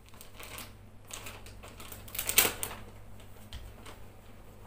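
Scattered light clicks and crinkles of a small plastic packet being handled in the hands, with one sharper click about two and a half seconds in.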